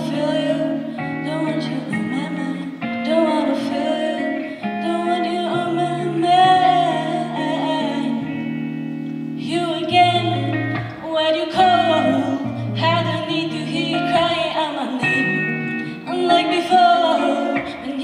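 Live music: a woman singing into a microphone over guitar accompaniment, holding long wavering notes.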